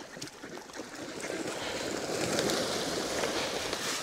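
A flock of ducks splashing and paddling in shallow water as they crowd in to feed on scattered wheat, a continuous rustling splash that builds over the first couple of seconds.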